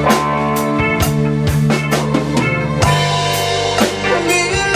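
Live band playing with no singing: drum kit strokes over long held bass notes and other pitched instruments.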